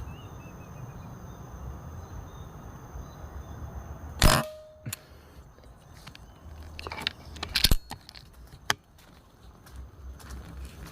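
A single shot from a PCP air rifle about four seconds in: a sharp crack with a brief ringing tone after it. A few seconds later come sharp clicks and rattles of the rifle and gear being handled, with faint bird chirps in the background before the shot.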